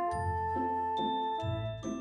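Background music: a tune of ringing, sustained notes over a low bass, a new note a little more than twice a second.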